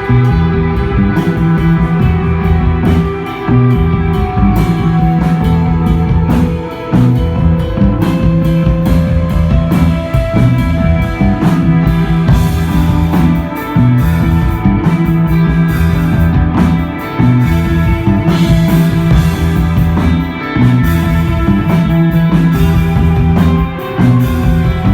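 Live instrumental desert rock band playing: electric guitar over a heavy repeating bass riff and drum kit. The phrase comes round about every three and a half seconds.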